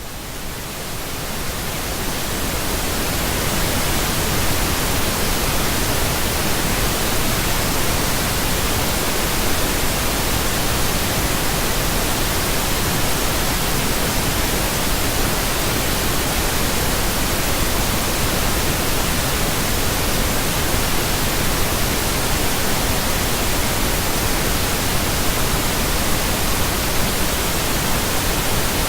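Steady electronically generated pink noise: an even, unchanging hiss spread across all pitches. It fades in over the first few seconds, then holds level.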